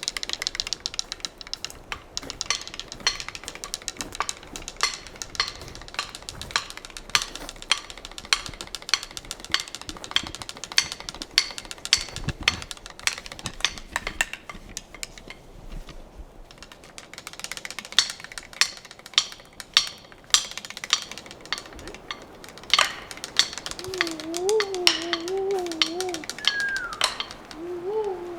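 Sharp, irregular pecking taps on wood, several a second, going on throughout. A wavering, voice-like tone joins them near the end.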